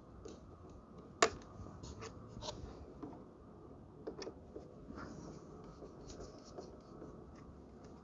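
Hand screwdriver turning a screw on a GFCI outlet, with light scratching and small clicks of metal on plastic, and one sharp click about a second in.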